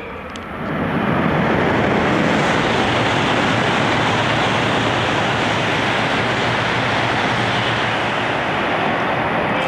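Tohoku Shinkansen H5 and E6 coupled train passing through a station at speed without stopping. Its loud rush of air and wheel noise builds up within the first second and holds steady as the cars go by.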